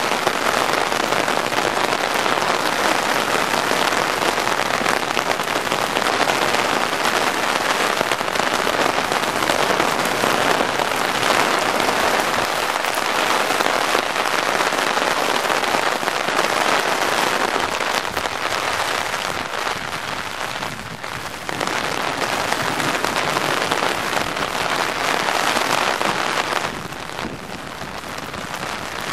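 Heavy rain falling steadily on wet pavement and hitting the umbrella held over the microphone, a dense, even hiss. It lets up a little about two-thirds of the way through and again near the end.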